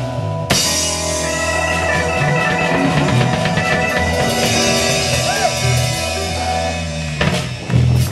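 Live blues band playing an instrumental passage between sung lines: electric guitars, keyboard and drum kit, with a couple of bent notes about five seconds in.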